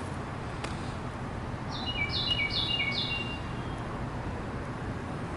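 A songbird singing one short phrase of four quick, repeated downward-sliding notes about two seconds in, over a steady low background rumble.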